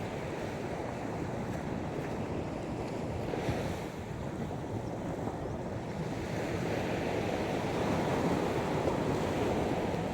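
Sea waves washing onto the shore in a steady surge, with a wave building and spreading in the second half. Wind rumbles on the microphone underneath.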